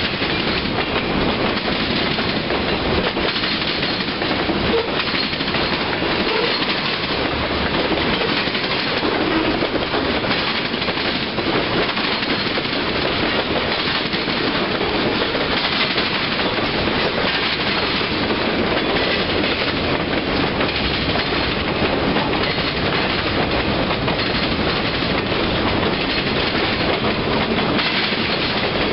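A mixed freight train of boxcars and tank cars rolling past close by: a steady rumble with the clatter of steel wheels on the rails, unbroken throughout.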